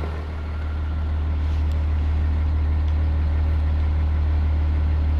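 A vehicle engine idling: a steady low rumble with a faint hum of even tones above it.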